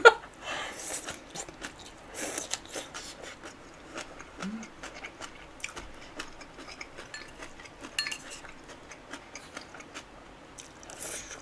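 Close-up eating sounds: chewing and wet mouth noises, with many light, scattered clicks of chopsticks against dishes.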